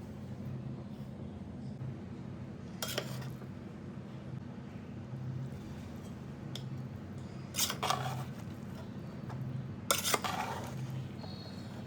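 Metal kitchen utensils clattering against cookware three times, about three, eight and ten seconds in, the last two the loudest, over a steady low hum.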